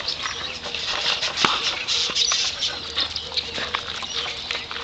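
Dogs running and playing, a busy patter of small rustling and clicking sounds with a faint steady hum underneath.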